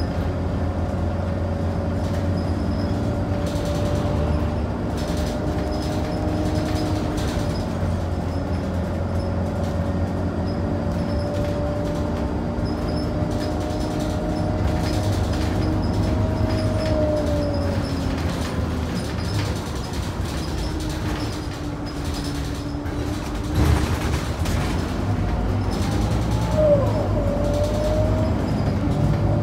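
Scania DC9 nine-litre six-cylinder diesel of a Scania K94UB bus, heard on board while under way: the engine note climbs slowly, falls away about two-thirds of the way through, then climbs again. A single knock and a short squeal come near the end.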